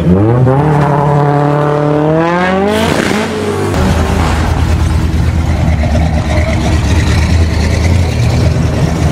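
A car engine revving up as the car accelerates away, its pitch climbing for nearly three seconds before easing off. Then, after an abrupt change a little over three and a half seconds in, a big old car's engine runs with a deep, steady rumble.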